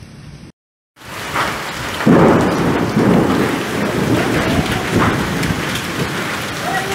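Heavy rain mixed with hail pouring down onto a street, a dense steady hiss with low rumbling underneath. It cuts out briefly about half a second in, returns a second in and grows louder about two seconds in.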